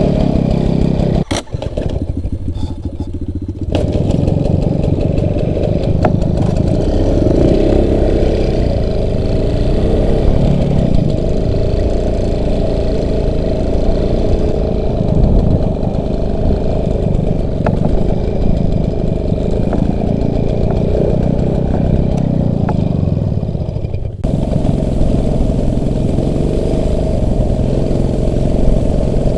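Off-road motorcycle engine running under way. It drops off briefly about a second and a half in and picks up again at about four seconds.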